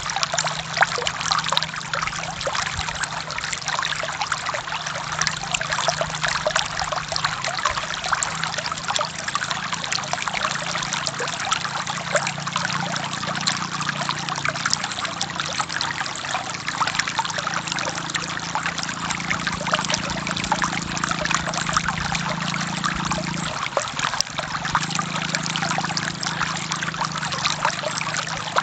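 Forest stream flowing steadily: a continuous rush of water with fine splashing and trickling, and a deeper gurgle underneath that dips briefly near the end.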